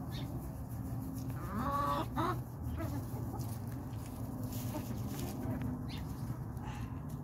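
Chickens clucking, with one louder drawn-out call about a second and a half in.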